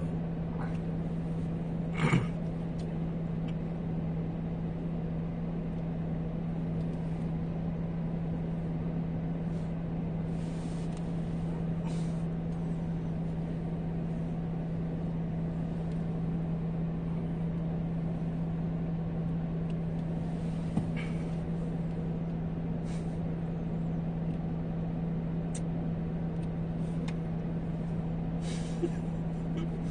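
Steady low drone inside a car cabin, held at one pitch, with a few faint brief rustles and clicks, the loudest about two seconds in.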